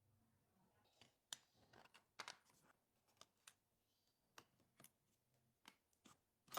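Faint, irregular clicks and light taps of small hand tools working on an iPhone's back glass and frame, about a dozen, starting about a second in.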